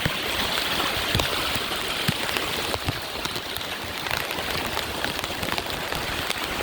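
Storm-drain floodwater running through a backyard fence, a steady rush of flowing water with scattered small ticks over it.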